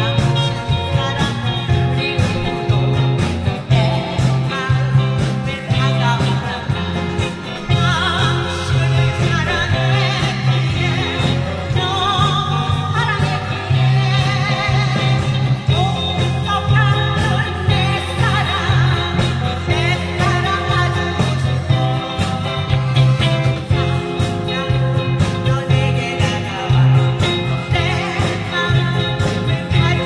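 A singer performing a song over loud instrumental accompaniment with a steady bass beat.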